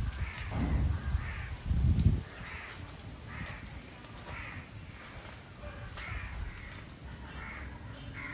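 A crow cawing repeatedly, short calls about one a second. Low rumbling thumps in the first two seconds are louder than the calls.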